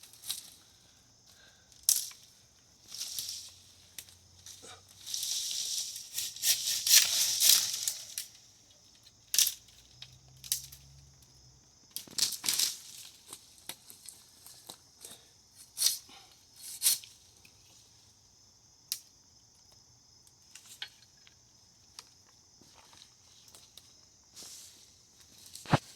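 Dry branches and leaves crackling and snapping as they are handled, with irregular sharp snaps scattered through and a longer crackling stretch about five seconds in, over a faint steady high hiss.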